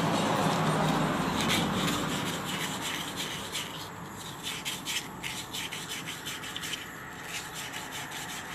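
Sandpaper rubbing back and forth on an electric fan motor's rotor shaft in quick, irregular strokes, cleaning a shaft that the owner thinks has burnt and is sticking. A low background hum fades out about two seconds in.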